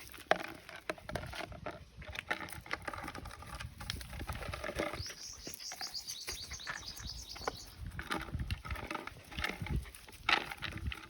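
Dogs eating, with irregular wet clicks and smacks of chewing and lapping. About halfway through, a quick run of high chirps lasts a couple of seconds.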